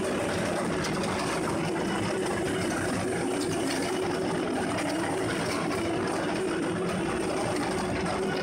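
Heavy-duty shaft-type document shredder running steadily as its hook-toothed cutter shafts tear through ring binders, plastic-wrapped files and stacks of paper. A constant machine hum with continuous crackling and crunching.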